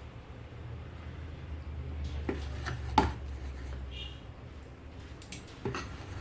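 Small metal tools clicking and tapping on a repair bench: a few sharp knocks, the loudest about three seconds in, over a steady low hum, with a brief faint high chirp near the middle.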